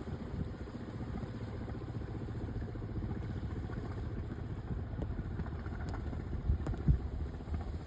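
An engine running steadily at a low, even rumble, with a few short low thumps near the end.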